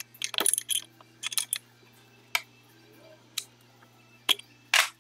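Metal clinks and taps of a wrench working on the flywheel bolts and holding bar of a BMW airhead engine: a quick cluster of ringing clicks in the first second, then single clicks about a second apart, over a faint steady hum.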